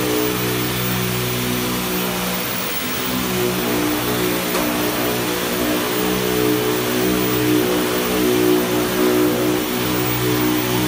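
Steady machinery noise: a broad hiss with a low droning hum whose pitch shifts every second or so, and the hum stops near the end.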